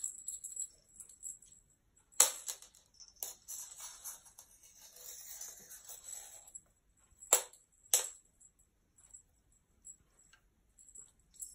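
A cat pouncing on a feather wand toy on a laminate floor: sharp taps of paws and toy striking the boards, two close together early on and two more about a second apart later, with soft scuffling and scrabbling between.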